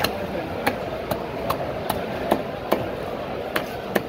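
A large knife chopping a barracuda into steaks, each blow cutting through the fish and striking the wooden block. There are about nine sharp chops in a quick, steady rhythm, with a short pause near the end.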